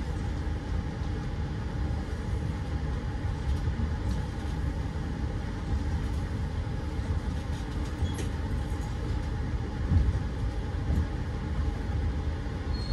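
Steady low rumble of a train in motion, with a brief louder knock about ten seconds in.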